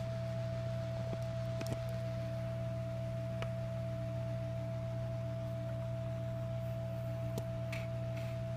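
Steady low electrical hum with a steady higher whine, and a few faint clicks scattered through it.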